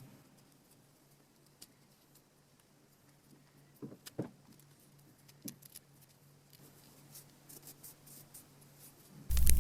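A few faint, scattered clicks and light knocks over near silence, then music comes in loudly just before the end.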